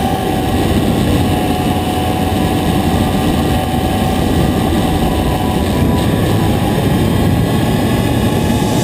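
Motorcycle riding at steady speed, heard from a camera on its fairing: a steady rush of wind over the microphone with the engine running underneath.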